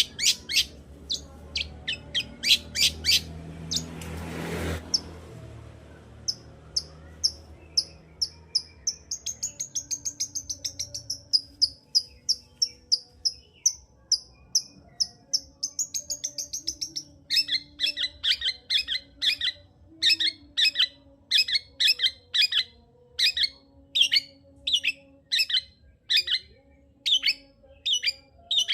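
Long-tailed shrike (cendet) in full song: quick sharp high notes, then a fast high-pitched trill in the middle, then harsher repeated notes about two a second toward the end. A brief burst of noise about four seconds in.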